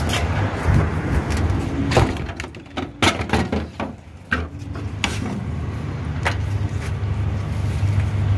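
Hands working on a car's trunk lid latch and trim: a string of sharp plastic clicks and knocks, spread a second or so apart, over a steady low hum.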